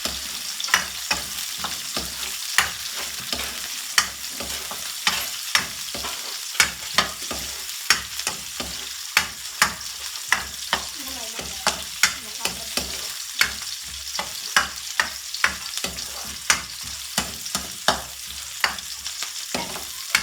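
Garlic, onion and ginger sizzling in hot oil in a pan while a utensil stirs them, clicking and scraping against the pan about twice a second over a steady frying hiss.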